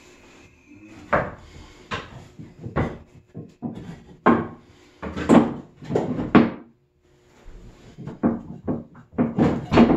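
Wooden knocks and thuds of hand-cut mortise-and-tenon timber joints being pushed and knocked together. There are about a dozen irregular knocks, loudest in a cluster around the middle, with a short pause a little after.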